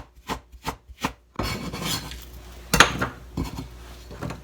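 Kitchen knife slicing white spring onion diagonally on a cutting board, in even strokes about three a second. After a second or so the strokes stop, followed by a rough scraping rustle and two separate knocks.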